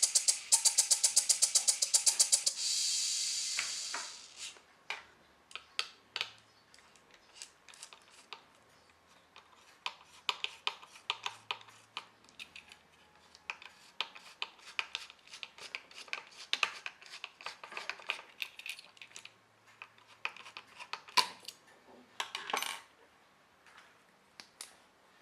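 An opened Hitachi laptop hard drive, powered up with its platters removed, clicking rapidly and regularly as its head actuator arm swings back and forth. The clicking stops about two and a half seconds in, and a motor whir fades out over the next second or so. After that come scattered light ticks and clicks.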